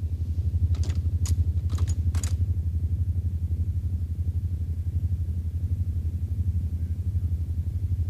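Low, rapidly throbbing electronic hum of a science-fiction time machine sound effect, holding steady, with a few faint high chirps in the first two or three seconds.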